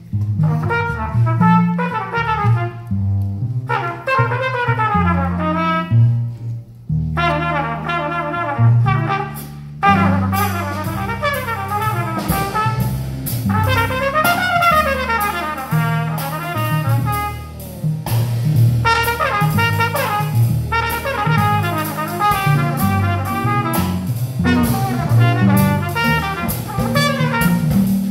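Small jazz group playing, with a trumpet soloing in fast running lines over a walking upright bass. Cymbals and drums come in about a third of the way through.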